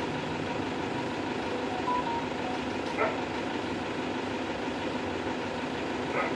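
Toyota car engine idling steadily, with a short high tone about two seconds in and two sharp clicks about three seconds apart.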